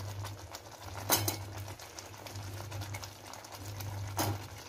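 Chopped potatoes and green peas being tipped and stirred into a thick tomato-onion masala in a pan, with a faint crackle from the cooking and two sharp knocks of a utensil against the pan, about a second in and near the end. A low steady hum runs underneath.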